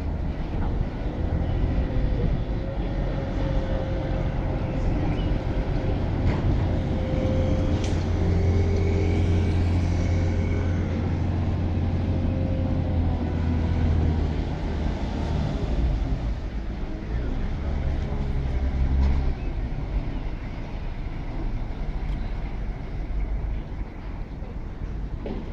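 Canal tour boat's engine running as the boat passes just below, a low steady hum that builds through the middle and fades again in the later part, over general city noise.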